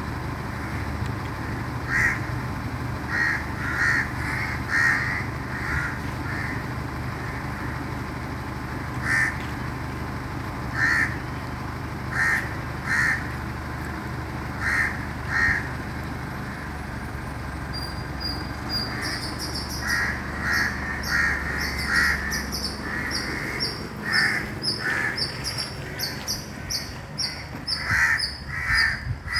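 Crows cawing repeatedly, in short calls that come singly or two or three at a time. From about two-thirds of the way in, a fast series of high chirps, several a second, runs alongside the caws.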